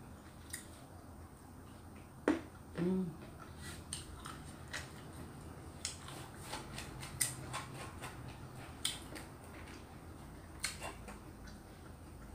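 A person eating with their fingers and chewing with the mouth open: scattered small wet clicks and lip smacks. A louder click comes a little over two seconds in, followed by a brief low hum from the throat.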